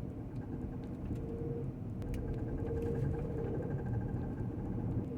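Jeep Grand Cherokee driving: steady engine and road rumble with a hum, and faint sharp knocks every so often, a knocking noise from underneath the vehicle.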